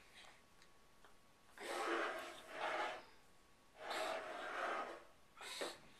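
Stifled, breathy laughter close to the microphone, in two bursts of about a second each and a short third one near the end.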